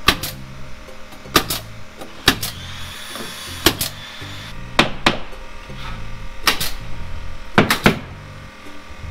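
Pneumatic nail gun firing nails into heavy siding panels: about ten sharp shots, a second or so apart, some in quick pairs. Background music with a steady bass line plays underneath.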